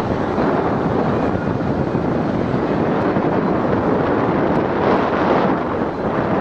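Wind buffeting the microphone: a loud, steady rushing that covers everything else.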